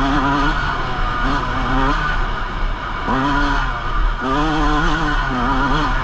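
Yamaha YZ125 two-stroke dirt bike engine revving up and down over and over as the throttle is opened and closed on the trail.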